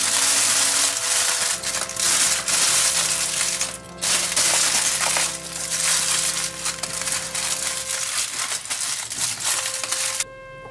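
Aluminium foil being crumpled and crimped by hand, folded shut into a packet, with loud continuous crinkling and crackling that pauses briefly once and stops near the end. Background music plays underneath.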